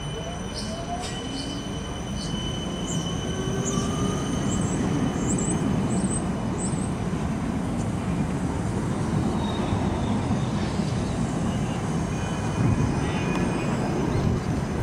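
Combino low-floor tram passing close by, its wheels rumbling on the rails and growing louder as it comes alongside. In the first couple of seconds there is a rising electric motor whine, and a few short, high wheel squeals come a few seconds in.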